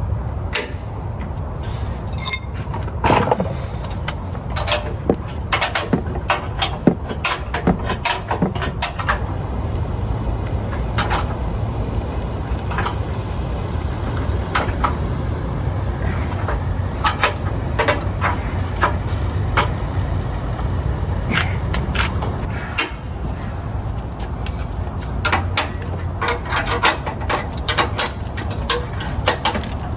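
Pickup truck engine idling steadily, under scattered sharp metallic clicks and knocks from hand tools and suspension parts being fitted.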